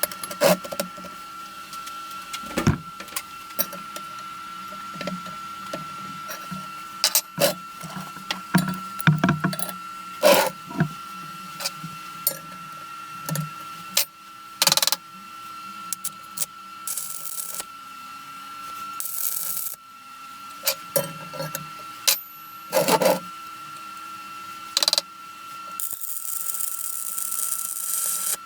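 Metal parts and hand tools being handled in a workshop: scattered knocks, clinks and clicks over a steady high-pitched tone, with short bursts of hiss in the second half.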